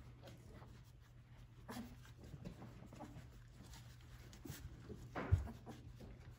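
Three-week-old Labradoodle puppies and their mother moving about on the bedding of a whelping box: faint scratching and shuffling with a few small squeaks, and one soft thump a little past five seconds in.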